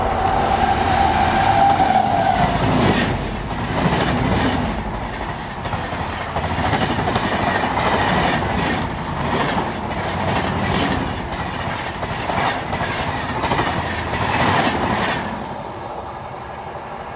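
WAP-7 electric locomotive and its LHB coaches passing at speed. A steady high tone comes from the approaching locomotive for the first two seconds, then the wheels clatter rhythmically over the rail joints, dying away near the end as the last coaches go by.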